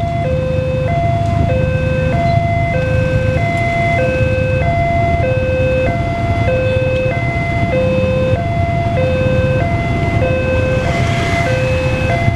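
Railway level-crossing warning alarm sounding an electronic two-tone chime, a low note and a higher note alternating, each lasting a little over half a second, over the low rumble of idling motorcycle engines at the barrier.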